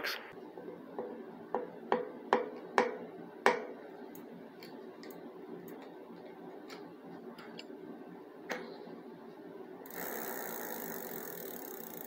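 A few sharp metal clicks and knocks as tools work the lock ring on a bicycle cassette. Near the end comes a fast, steady ticking: the rear hub's freehub pawls clicking as the cassette and wheel are turned.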